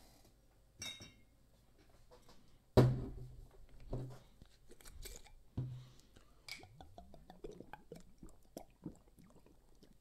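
A glass clinks once with a short ringing tone, then is set down with a sharp knock and thud about three seconds in. Two lighter thuds follow, then small scattered clicks and handling noises.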